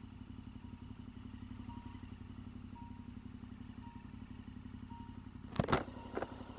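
Motorcycle engine running steadily at low road speed, heard from on the bike, with a faint short beep about once a second. Two brief loud knocks come near the end.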